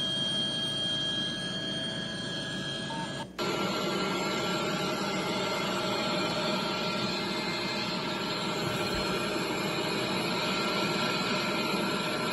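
Steady rushing noise from footage of a fire on the sea in the Gulf of Mexico, played back through a laptop's speakers. It drops out for an instant about three seconds in and comes back louder as the clip changes.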